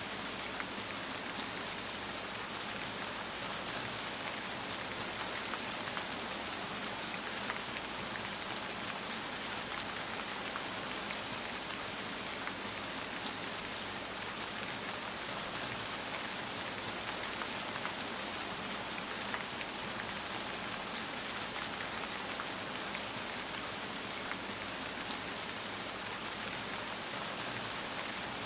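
Steady rain falling, a dense even hiss with many small drop ticks and no thunder.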